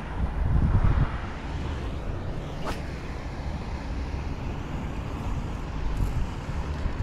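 Wind buffeting the microphone outdoors, a fluctuating low rumble that swells about a second in, with one brief sharp high sound just before the middle.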